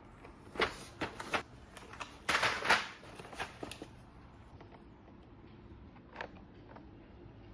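Plastic keyboard keycaps clicking and clacking in an irregular run of sharp clicks for about three seconds, then one more click a couple of seconds later.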